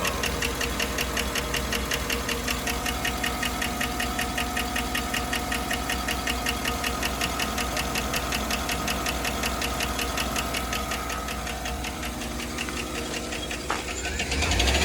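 Chevrolet Suburban's 5.3 L LS V8 running with a fast, steady ticking over its low hum; the engine is still flagging a misfire on cylinder four. The sound grows louder about a second before the end.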